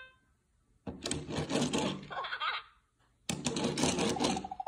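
Electronic sound effects from a VTech Roll and Spin Pet Train toy: two short noisy bursts with a voice-like chatter, then a rapidly pulsing beep near the end.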